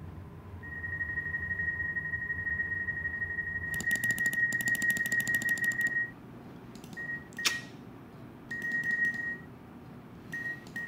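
A steady high-pitched electronic tone, joined for about two seconds by a fast, even crackling buzz, then breaking off into short beeps with one sharp click between them.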